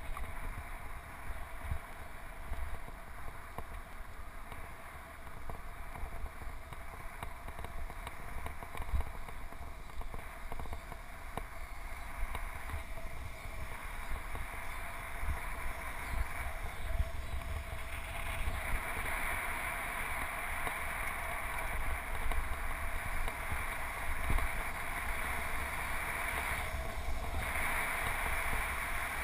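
Wind rushing over a GoPro's microphone on a moving bicycle, with low, uneven buffeting rumble; the rush grows louder a little past halfway.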